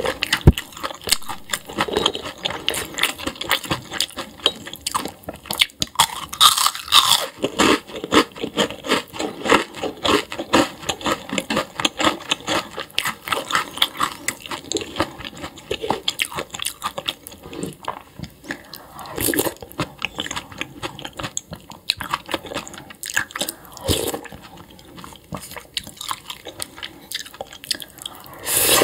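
A person chewing and crunching food close to the microphone, with a dense run of irregular crackles and wet mouth clicks and a few louder bites along the way.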